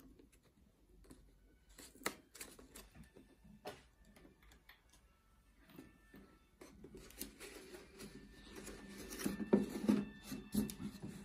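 Paper being handled: light rustling and creasing with scattered sharp clicks and taps, busier and louder in the last few seconds.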